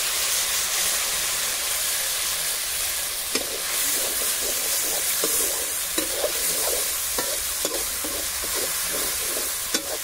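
Ground spice paste sizzling steadily in hot oil in a metal wok, the masala base of a curry being fried. From about three seconds in, a slotted steel ladle scrapes and taps against the pan as the paste is stirred.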